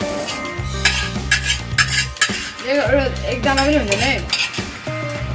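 Metal fork and chopsticks clinking and scraping against steel plates as noodles are eaten, over background music with a steady bass line and a wavering melody about three seconds in.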